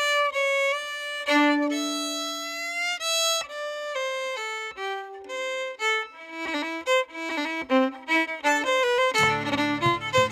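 Fiddle playing a quick traditional dance-tune melody. About nine seconds in, deep bass notes and accompaniment come in underneath it.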